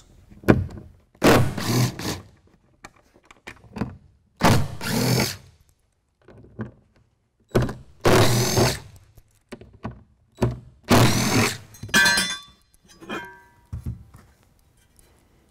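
A DeWalt cordless drill fitted with a T30 Torx bit runs in four short bursts of about a second each, backing out the screws that hold a bracket plate. Near the end come light metallic clinks as the loose screws are handled.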